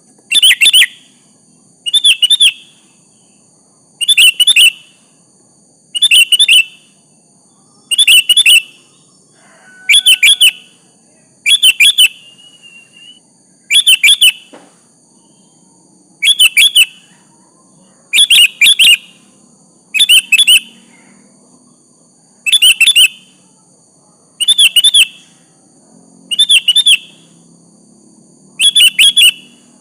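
Sooty-headed bulbul (kutilang) calling: a short, bright phrase of a few quick notes, repeated about every two seconds.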